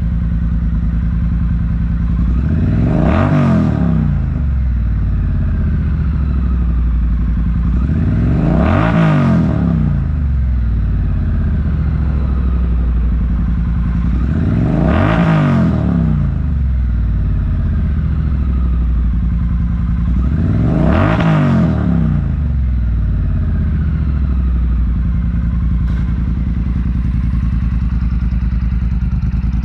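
Triumph Bonneville T100's parallel-twin engine idling through Predator Pro silencers and a Tamarit X-pipe, blipped four times, about six seconds apart, each rev rising and falling quickly back to idle.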